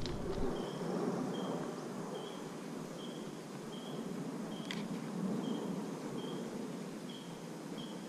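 Steady outdoor background noise, with a faint high chirp repeating roughly every three-quarters of a second and a single sharp click about halfway through.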